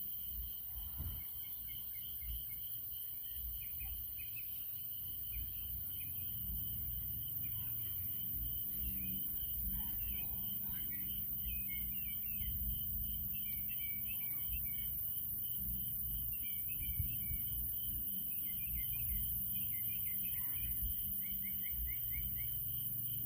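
Evening outdoor ambience: birds chirping in short, scattered calls over a steady high-pitched hum and a low rumble.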